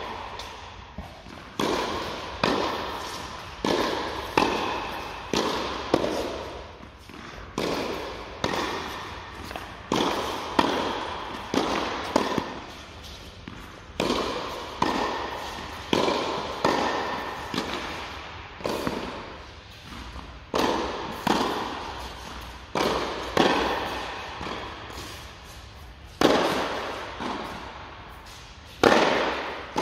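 Tennis rally: racket strikes on the ball and ball bounces, a steady run of sharp pops about one to two a second, each ringing on in the echo of an indoor tennis hall.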